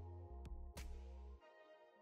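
Quiet background music: held electronic chords with a few sharp beat hits, the low bass dropping out about one and a half seconds in.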